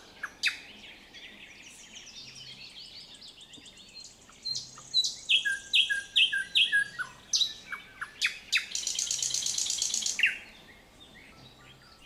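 Nightingale singing: phrases of quickly repeated whistled notes, then a loud, dry rattle about nine seconds in, followed by a short pause near the end.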